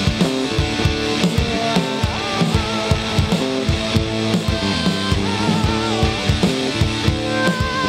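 Live rock band playing: electric guitar, bass guitar and drum kit keeping a steady beat, with a wavering high lead line over the top.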